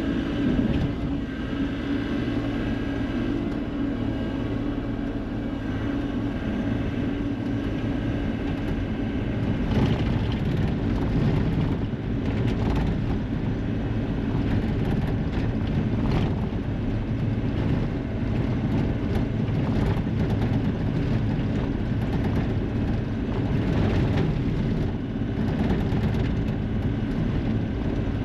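Skid steer engine running steadily under work, with a few short knocks and clatter from debris and the machine partway through.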